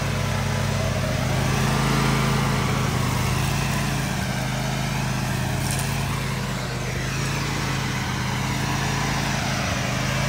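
Toro zero-turn riding mower running steadily under load, its engine note and spinning blades cutting grass.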